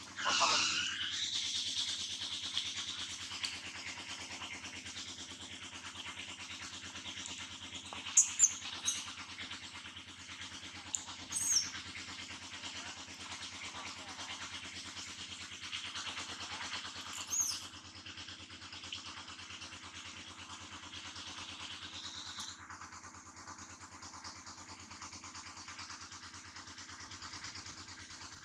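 Steady outdoor background of a high, even hiss over a low steady hum. A few short, high-pitched squeals cut in, twice close together about eight seconds in, then near eleven and a half and near seventeen seconds. The hiss falls away about twenty-two seconds in.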